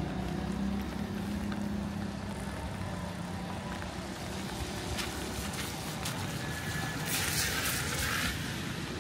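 City street traffic: a vehicle engine running with a steady low hum, then a sharp hiss lasting about a second, a little after seven seconds in.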